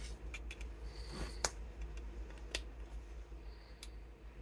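Light, scattered plastic clicks and taps from handling a Korg NTS-3 Kaoss Pad and turning its knobs, about half a dozen in four seconds, over a steady low hum.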